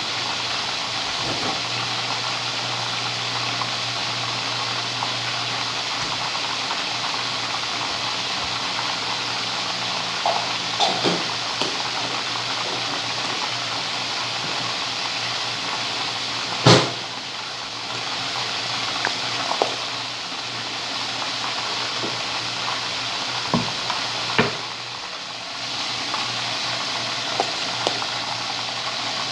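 Chicken wings frying in hot oil in a pan: a steady sizzling hiss. A few knocks of kitchen utensils cut in, the sharpest about halfway through and a couple more later on.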